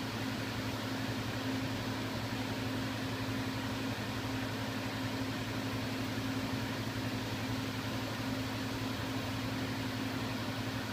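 Steady low electrical hum with fan-like hiss from a CNC milling machine and shop equipment standing at idle. The level stays even, with no cutting or other sudden sounds.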